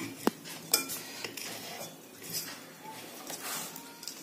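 Metal ceiling-fan parts handled and fitted together by hand: a few light metallic clicks and scrapes as the stator is seated in the fan's housing.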